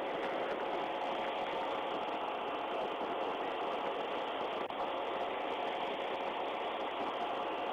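Steady engine idling hum with faint steady tones, heard through a police dashcam's microphone.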